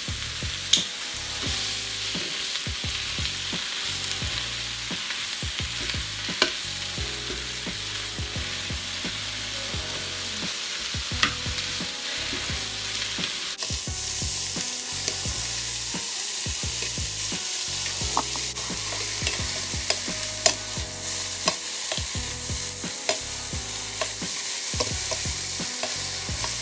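Baby spinach sizzling as it wilts in a hot frying pan, tossed with kitchen tongs that click against the pan now and then. The sizzle grows louder about halfway through.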